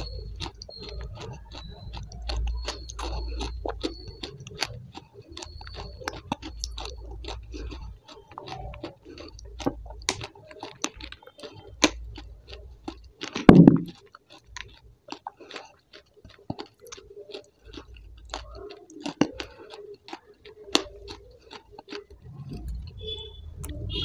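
A person chewing and crunching food, with many short sharp mouth clicks and one louder, lower thump about halfway through.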